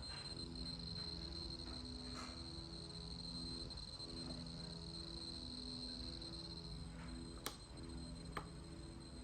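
Lecoo speaker giving off a faint, steady high-pitched buzz while switched to off mode, the unwanted noise the owner is showing. Two sharp clicks come near the end, about a second apart.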